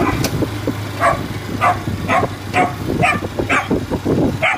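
Dog barking repeatedly, about two barks a second, over the steady low hum of the vehicle being ridden.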